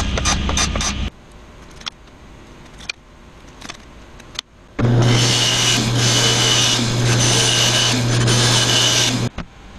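Band saw running and cutting through a small wooden block from about five seconds in for about four and a half seconds: a steady motor hum under the hiss of the blade in the wood. Before it, a table saw runs for about a second and cuts off abruptly, followed by quieter handling sounds.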